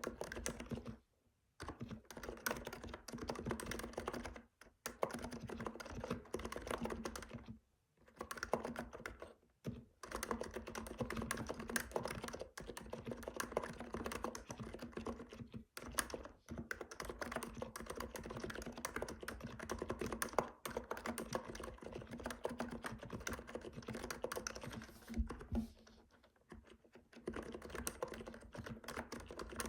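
Typing on a Hansung electrostatic capacitive keyboard with 35 g switches and Apple-style keycaps: fast, continuous keystrokes, broken by a few short pauses.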